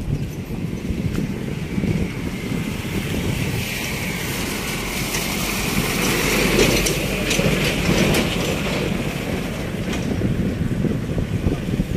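A motor vehicle's engine running, a steady low rumble with a hiss above it that swells toward the middle and then eases off.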